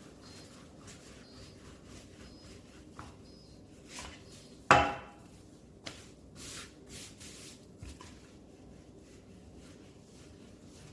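Rolling pin working samosa dough on a board: soft rubbing strokes and light knocks, with one sharp wooden knock that rings briefly about five seconds in and a few quick swishes just after.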